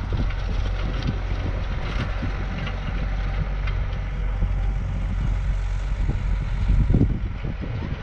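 Wind buffeting the microphone over the steady low drone of a Massey Ferguson tractor engine working the field. A stronger gust comes about seven seconds in.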